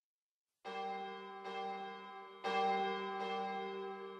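Church bells ringing, starting about half a second in, a new stroke about every second, each one ringing on under the next.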